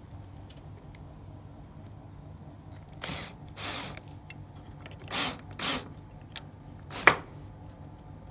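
Drill driving a screw into a pre-drilled hole in hard wood, run in four short bursts in two pairs, followed by one sharp click near the end.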